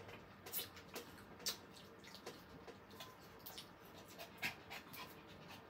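Faint, irregular small clicks and crackles of cooked shrimp being peeled by hand and chewed.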